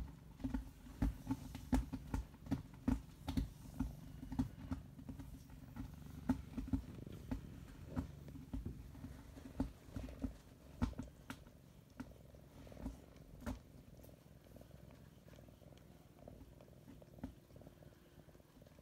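A cat purring steadily, with a run of soft, sharp clicks over it that thins out after about fourteen seconds.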